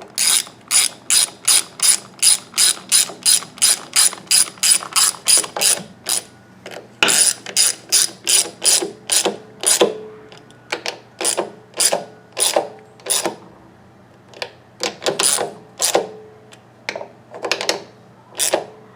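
Ratchet wrench driving in two 10 mm bolts. It runs at a steady, rapid click-stroke pace, about four strokes a second, for the first six seconds, then comes in shorter runs with pauses as the bolts snug down.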